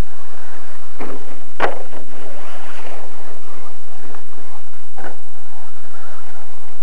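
Electric RC short-course truck (Associated SC10) running over a dirt track, heard through a small camera's microphone as a loud, steady noisy hiss. Three sharp knocks come about one, one and a half and five seconds in, the middle one the loudest.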